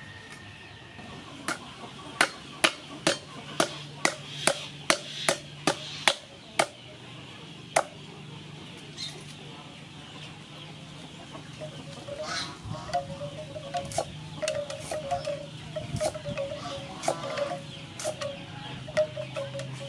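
Cleaver chopping vegetables on a wooden chopping block: about a dozen sharp strikes, roughly two a second, stopping about eight seconds in. Hens clucking, more prominent in the second half.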